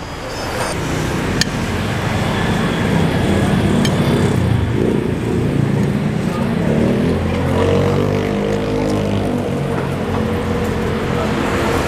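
Road traffic passing a roadside stall: a steady rumble of vehicles, with an engine growing louder and shifting in pitch as it passes between about seven and ten seconds in.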